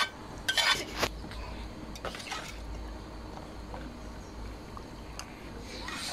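Boiled potatoes scraped out of a bowl with a spatula and dropping into thick beef curry in an aluminium pot: a few sharp scrapes and wet plops in the first couple of seconds. After that a spoon quietly stirs the liquid curry.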